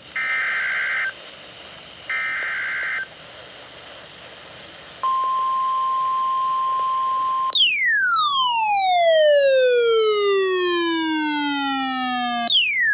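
NOAA Weather Radio emergency alert signal: two short bursts of SAME digital header data, then a steady 1050 Hz warning tone for about two and a half seconds. A loud electronic tone with many overtones follows, falling steadily in pitch over about five seconds, and a second falling sweep starts near the end.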